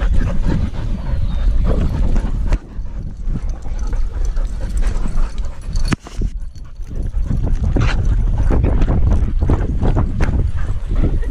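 Heavy wind rumble and irregular knocks from an action camera strapped to a running husky, the dog's strides and movement jolting the mount, with dog sounds mixed in.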